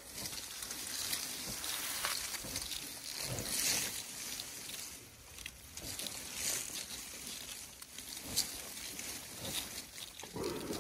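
Young African elephant stripping and chewing bark off a small tree's branches: irregular rustling, tearing and crunching, with a sharp snap about eight seconds in.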